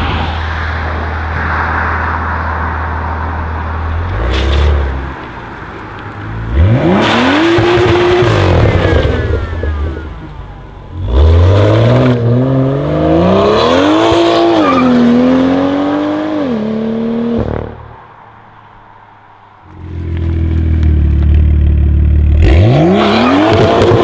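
BMW M2's turbocharged straight-six through an iPE titanium exhaust: it idles with a low rumble, blips once, then twice revs sharply and holds high revs under full throttle, the pitch wavering up and down, before cutting off abruptly. After a short near-quiet gap it idles again and the revs climb sharply once more near the end as the rear wheels spin.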